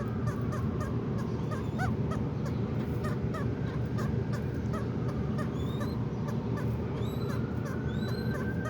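Zebra doves calling in short, rapidly repeated cooing notes, with higher chirps from other small birds mixed in. A long drawn tone swells near the end, over a steady low background rumble.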